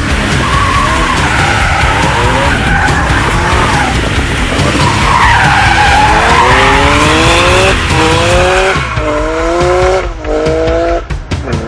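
BMW M3/M4's 3.0-litre twin-turbo inline-six accelerating hard, its note climbing and dropping back through several quick upshifts in the second half, with tyres squealing under load.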